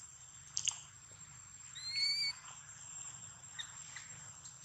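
A baby macaque gives one short, high-pitched squeak that rises slightly, about two seconds in. A faint steady high whine runs underneath.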